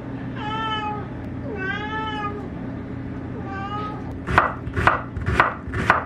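A domestic cat meowing three times, each meow a pitched call under a second long. About four seconds in, a kitchen knife starts chopping an onion on a wooden cutting board, about two strokes a second.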